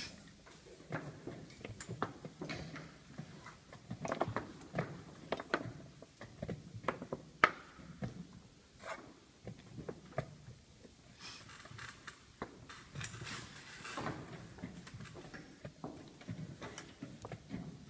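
Chess pieces knocking down onto a roll-up board and a digital chess clock's buttons being pressed, in the quick give-and-take of blitz moves: an irregular string of sharp knocks and clicks, with a soft rustle a little past the middle.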